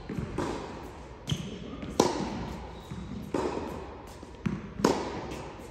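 Tennis balls struck by racquets and bouncing on a clay court in a large indoor hall. Each sharp hit echoes, with a loud strike about two seconds in and another near the end, and quieter knocks between.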